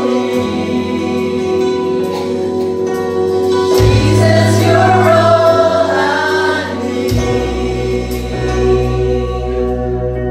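Slow Christian worship music with voices singing over sustained chords; the bass note changes about every three to four seconds.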